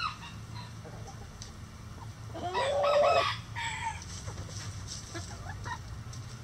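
A rooster crows once, for about a second near the middle, the loudest sound here. Hens cluck softly around it.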